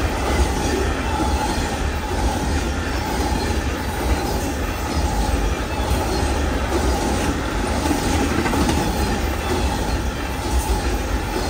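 Amtrak Auto Train autorack cars rolling past: a steady rumble of steel wheels on rail, with a thin, steady squeal from the wheels and light clicking.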